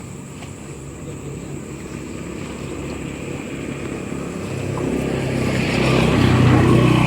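A small engine running and growing steadily louder as it draws near, loudest near the end.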